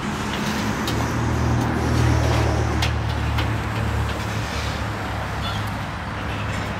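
CSX freight train cars rolling past on the rails, a steady noisy rumble with a few faint clicks. Under it a low diesel engine drone swells around two seconds in and drops away about four and a half seconds in.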